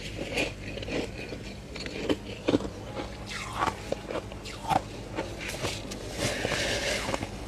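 Freezer frost being bitten and crunched, with some scraping: irregular sharp crunches and a longer scrape about six seconds in, over a steady low hum.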